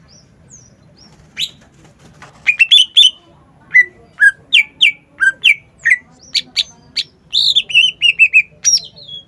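Green leafbird (cucak ijo) singing loudly: a string of sharp whistled notes, most sliding downward, with a quick run of repeated notes near the end.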